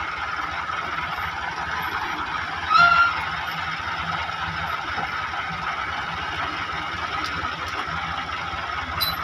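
Diesel farm tractor engines, a Massey Ferguson 375 and a Ghazi 65 hp, running at a steady idle. About three seconds in comes one short, loud, high-pitched tone.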